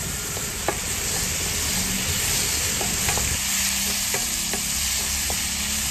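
Onions, garlic, tomatoes and ginger sizzling steadily in oil in a frying pan while a wooden spatula stirs them, knocking and scraping against the pan a few times.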